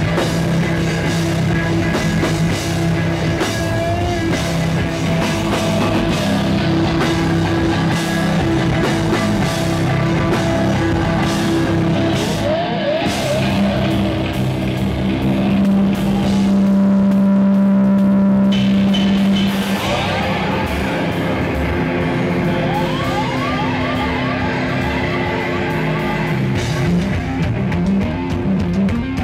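Live rock band playing: electric guitars, bass guitar and drum kit together at full volume. A long held low note stands out around the middle, and repeated gliding notes come through in the second half.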